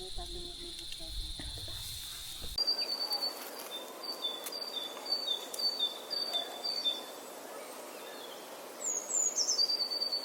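A steady, high insect drone, then an abrupt change to a bird repeating a short, falling two-note chirp over and over, with a few higher chirps near the end.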